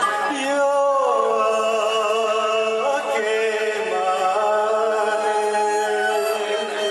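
A man singing a Japanese ballad into a microphone over a karaoke backing track, drawing out long held notes.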